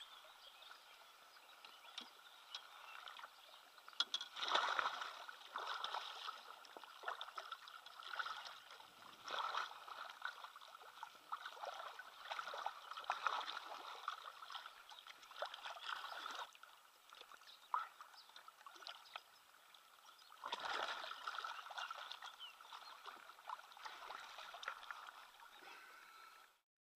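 Wels catfish thrashing at the water's surface as it is grabbed by hand, splashing in irregular bursts, loudest about four to six seconds in and again around twenty seconds in.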